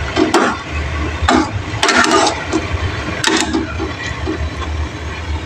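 Metal ladle stirring vegetable soup in a metal pot, scraping and sloshing in irregular strokes, over a low steady rumble.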